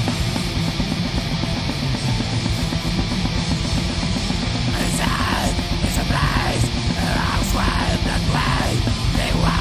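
Heavy metal song with electric guitar; about five seconds in, a yelled vocal line comes in over the band.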